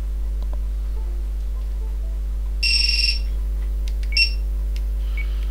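Matek piezo beeper on the flight controller sounding its startup beeps as the board reboots. There is one long high beep about two and a half seconds in, a short beep just after four seconds, and a faint lower one near the end.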